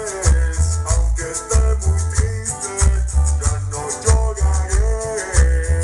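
Dance music with a steady heavy bass beat, a shaker ticking along and melodic lines, played loud over a sonidero sound system.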